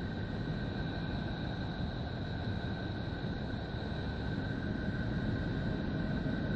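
The 'sound of Neptune': spacecraft radio-emission data turned into audio. It is a steady, rumbling hiss with two thin, steady high tones running over it, unchanging throughout.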